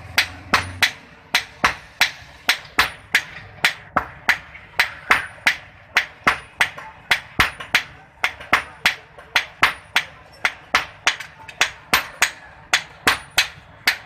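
Blacksmith's hammer striking hot iron on an anvil while forging a knife blade. The blows come in a steady rhythm of about two to three sharp metallic strikes a second, some followed by a short high ring.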